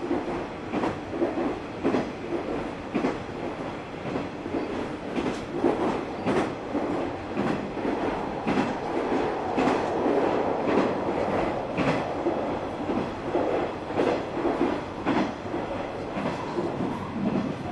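KiHa 120 diesel railcar running, heard from inside the car: a steady diesel engine drone under a quick, uneven run of wheel clicks over rail joints.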